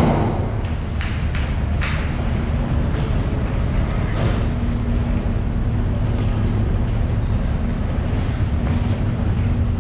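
Steady low drone of a car ferry's engines, heard on its enclosed steel vehicle deck, with a few sharp clicks about one to two seconds in.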